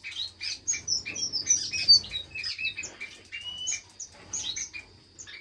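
Many small aviary finches chirping at once: a dense run of short, quick calls overlapping one another, with a faint steady hum underneath.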